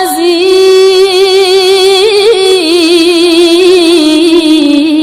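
A woman's voice reciting the Quran in melodic tajwid style, holding one long, ornamented note whose pitch wavers and dips slightly about halfway through.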